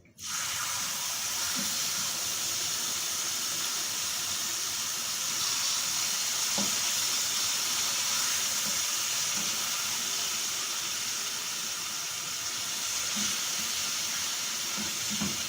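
Entrecote steak pieces laid into a hot pan of ghee and oil, setting off a steady, loud sizzle that starts suddenly as the meat hits the fat and holds while it sears.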